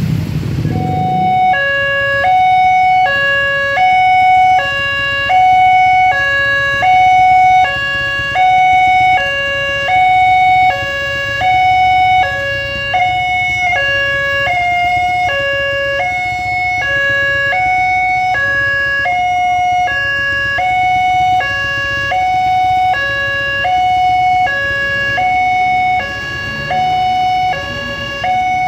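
Electronic two-tone railway level-crossing alarm, alternating evenly between a higher and a lower tone, each held about three-quarters of a second, starting about a second and a half in. A low hum of waiting traffic runs underneath.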